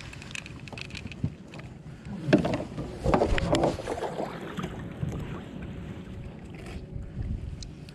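Handling noise on a kayak: fabric rubbing and brushing loudly over the camera microphone for a couple of seconds, with scattered small knocks and clatter as a caught rockfish is put on a stringer.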